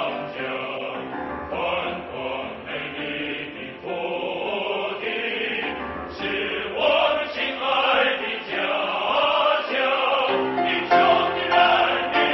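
Background music with choral singing.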